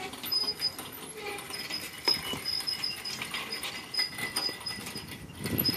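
Engine hoist with an engine hanging from its chain being pushed across a concrete driveway: casters rolling and rattling, with scattered clicks and a sharp clank about two seconds in.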